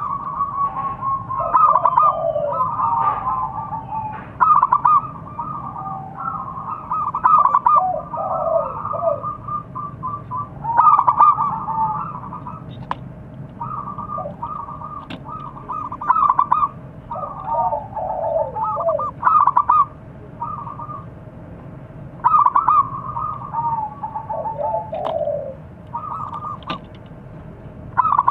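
Zebra dove (perkutut) cooing: repeated phrases of rapid, stuttering coos every few seconds, several of them ending in falling notes.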